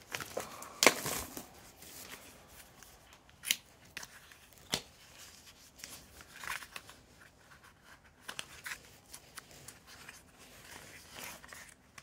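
A READYMAN deck of playing cards being unwrapped and handled: a loud tearing rasp about a second in, then scattered crinkles, clicks and the rustle of cards.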